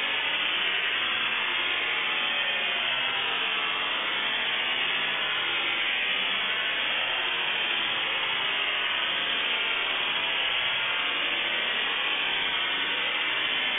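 Dial-up modem handshake slowed to a tenth of its speed: a steady, dense rushing hiss of scrambled line noise, even in level, with no distinct tones or beeps.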